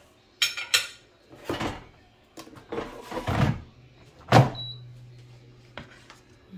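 Metal fork clicking and knocking against a plate as it is picked up and handled: a few sharp clicks, the loudest knock about four seconds in with a brief ring after it, then a low steady hum for about a second.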